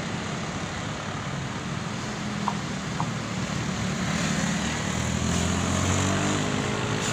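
Diesel engine of a Hino tour coach coming round a bend and passing close, growing louder from about four seconds in, over the steady noise of cars and motorcycles on the road. Two short ticks sound about two and a half and three seconds in.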